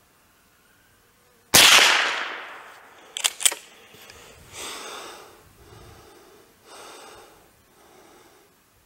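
A single shot from an FN Browning Trombone .22 LR pump-action rifle about one and a half seconds in, with a long echoing tail. About two seconds later come two quick sharp clicks as the pump slide is worked back and forward to eject the case and chamber the next round.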